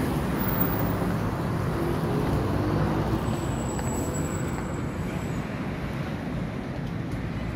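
Street traffic noise: a steady low rumble of vehicle engines, a little lower in the second half.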